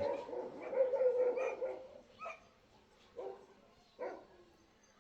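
Dog barking: three short barks about a second apart, after a more drawn-out sound in the first two seconds.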